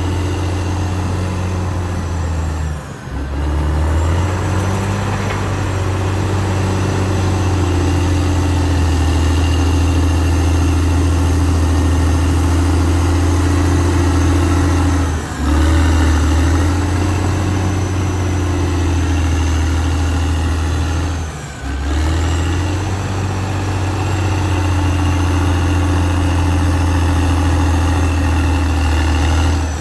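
Caterpillar D6R XL bulldozer's diesel engine running steadily with a strong low hum, its pitch shifting slightly as the load changes, with the sound briefly dropping out three times.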